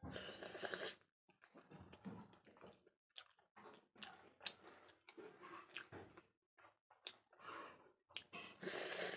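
A person chewing food close to the microphone, with irregular mouth clicks and short bursts of noise.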